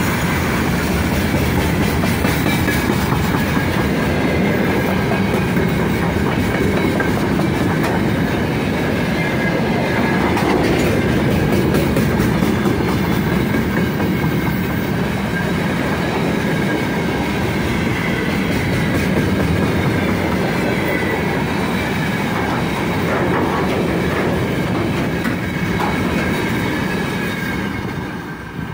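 Open freight wagons of a passing freight train rolling by at speed: a steady rumble and clatter of wheels on the rails, with a faint high ringing. The sound drops away near the end as the last wagon goes past.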